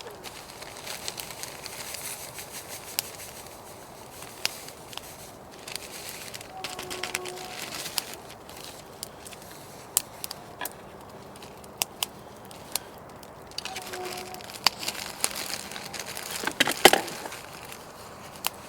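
Wood campfire crackling, with irregular sharp snaps and pops and a louder burst of snapping near the end.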